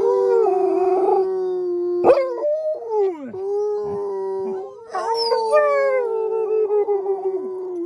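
Wolfdog howling: two long, steady howls with a short break of falling, wavering notes between them about two to three seconds in.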